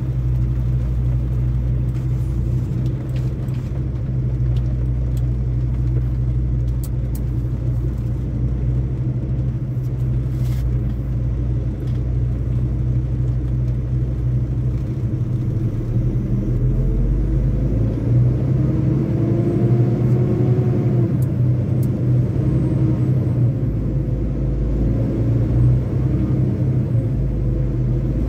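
Semi truck driving at highway speed: a steady low engine drone and road rumble.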